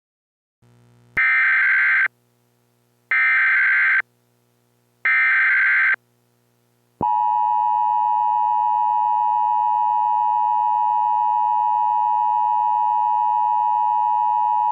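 Emergency Alert System tones: three roughly one-second bursts of SAME digital header data, a harsh warbling screech, spaced about a second apart. About seven seconds in, the steady two-tone EAS attention signal begins and holds.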